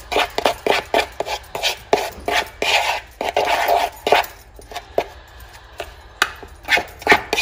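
Metal spoon stirring dry coconut flour and baking powder in a plastic mixing bowl: irregular scraping and light clicks as the spoon rubs and knocks against the bowl.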